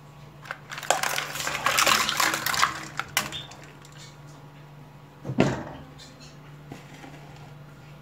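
Eggshells tipped from a plastic bowl into a stainless steel pot of water, clattering against each other and the pot for about two seconds. A single sharp knock follows about five seconds in.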